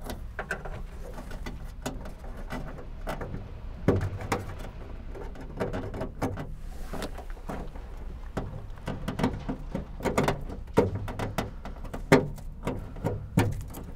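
Plastic wiring-harness connectors being handled and pushed into place inside a Honda Civic trunk lid: irregular short clicks and knocks of plastic against the sheet metal, the loudest about 4, 10 and 12 seconds in.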